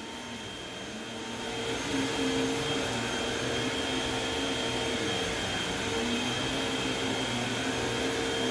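Vacuum cleaner running steadily with a constant whine, growing louder over the first two seconds and then holding steady.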